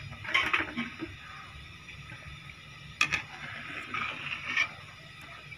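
A pot of fish stock and freshly added rice simmering, with scattered soft crackles over a faint steady low hum. A sharp click comes about three seconds in.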